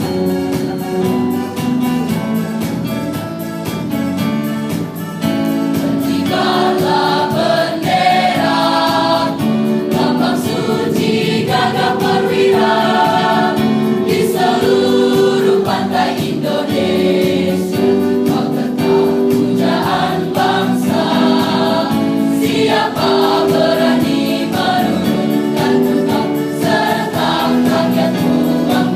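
A large mixed choir of high-school boys and girls singing, growing fuller and louder about six seconds in.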